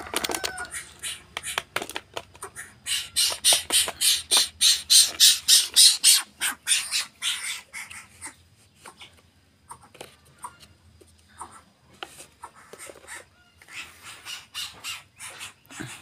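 Greater coucal on the ground making a rapid run of sharp, harsh clicks, about five a second. They are loudest in the first half and grow sparse and fainter after about eight seconds.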